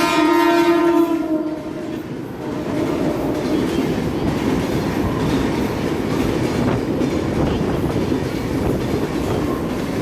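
Rajdhani Express locomotive horn sounding a steady chord that ends about a second and a half in, then the train rumbling and clattering over the track as it runs past.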